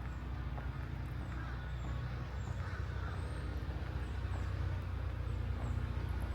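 Footsteps on a park trail over a steady low hum, with faint high chirps above.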